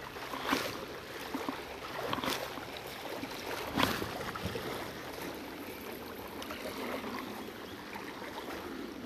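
Water lapping and washing steadily, with a few short sharp clicks or knocks, the clearest nearly four seconds in.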